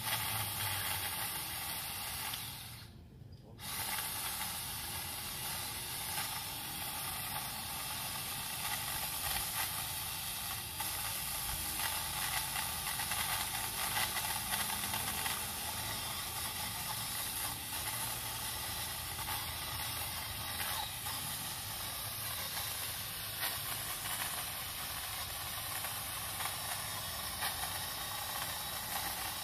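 Craftsman 20V cordless pole saw running steadily as its chain cuts an overhead branch, a high hiss that drops out briefly about three seconds in.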